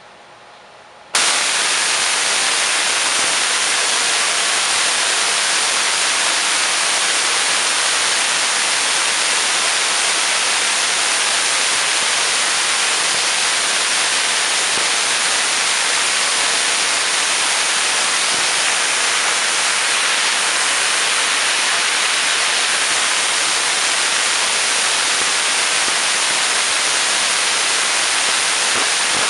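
Spark gap Tesla coil switching on about a second in, then running steadily: a loud, even crackling hiss from the spark gap and the streamers arcing off its toroid with no breakout point fitted.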